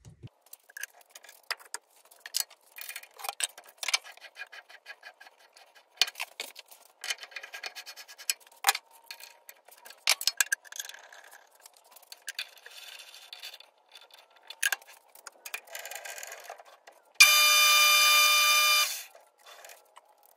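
A string of light clicks, taps and metallic ticks from tools and lathe parts being handled, then a loud steady electronic-sounding tone lasting under two seconds near the end.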